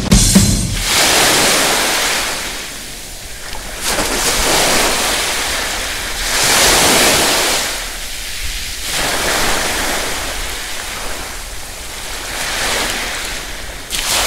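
Ocean surf: waves washing in and drawing back, an even hiss that swells and fades about every three seconds.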